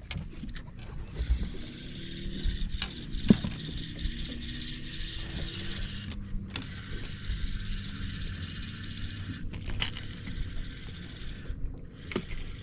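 Baitcasting fishing reel being cranked in a steady retrieve, with a gear whir and a few clicks, stopping briefly twice.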